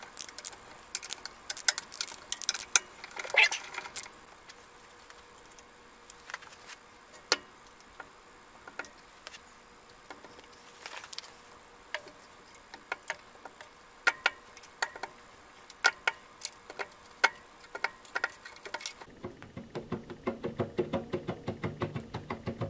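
Ratchet wrench clicking in short runs and tools clinking on metal as the bolts of a Kellogg air compressor's crankcase unloader cover are loosened. Near the end comes a faster, even run of clicks.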